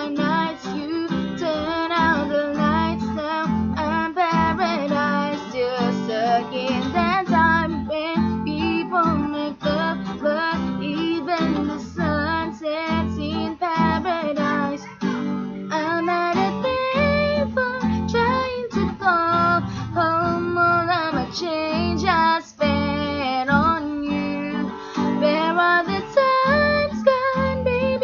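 A female voice singing to strummed acoustic guitar.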